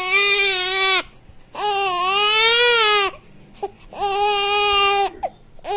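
Young child crying in three long, loud wails, each cut off sharply, upset at having the hiccups.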